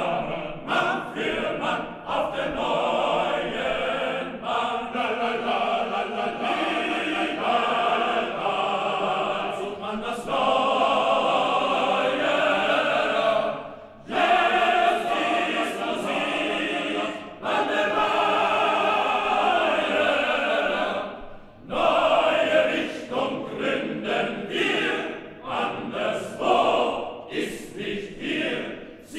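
Men's chorus singing a comic choral number, breaking off briefly twice.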